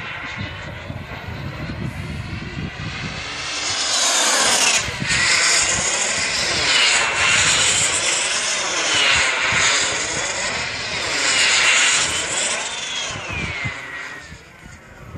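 Radio-controlled Opus V-Jet model powered by an MW44 model gas turbine, flying overhead. Its high turbine whine swings up and down in pitch as it passes back and forth, grows loud through the middle, and falls away in pitch near the end as it flies off.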